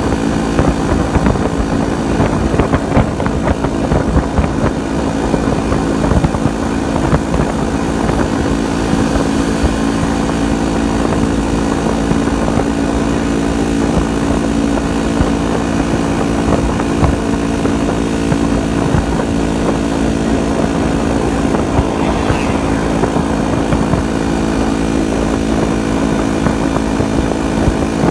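Yezdi motorcycle engine running at a steady cruising speed, with wind buffeting the microphone.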